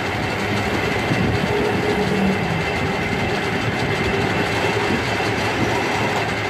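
Metal-turning lathe running, its spindle spinning a grooved pulley-like workpiece, with a steady mechanical rumble and a faint steady whine.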